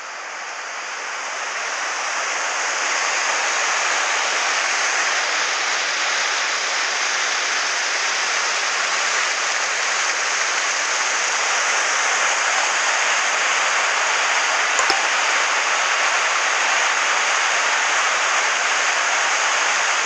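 Steady rushing of river water pouring over a low concrete weir, fading in over the first couple of seconds and then holding even, with a faint click about 15 seconds in.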